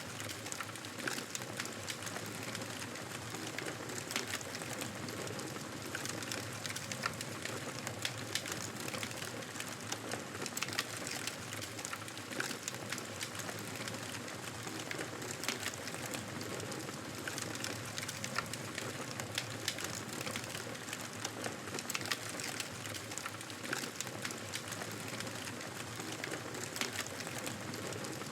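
Wood fire in a fireplace crackling steadily, with frequent sharp pops and snaps over a soft hiss.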